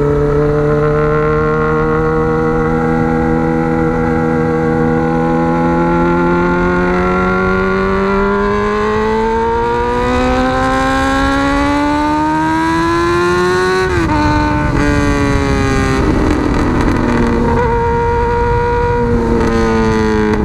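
Honda Hornet CB600F inline-four motorcycle with a megaphone exhaust, ridden: the engine note holds steady, then climbs for several seconds as the bike accelerates. About two-thirds of the way through the pitch drops sharply with a gear change, and the note then runs fairly steady under more rumble and wind noise, dipping briefly near the end.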